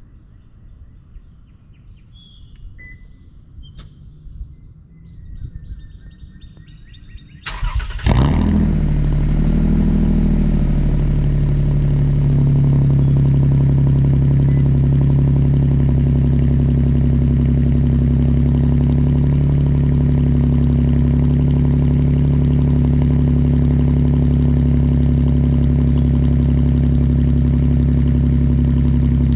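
2014 Toyota Sienna's 3.5-litre V6, straight-piped with no catalytic converters and breathing through the stock air box with a K&N filter, cold-started: about eight seconds in it cranks briefly, catches and settles into a loud, steady idle. Before the start, birds chirp faintly.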